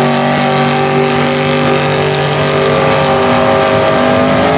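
Engine of a Chevy S-10 mud truck on tractor tires, held at high revs at a steady pitch as it drives flat out through a mud pit.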